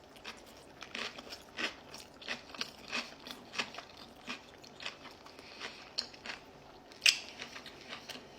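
Close chewing of a mouthful of egg topped with pickled peppers and crispy onions, with a run of short crunches, about two or three a second, and one louder crunch near the end.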